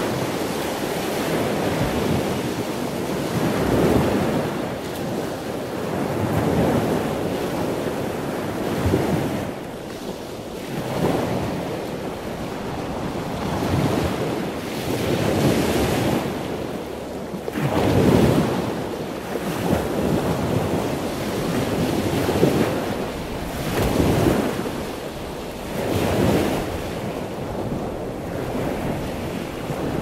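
Loud ocean waves washing in, a steady surf rush that swells and fades every two to three seconds.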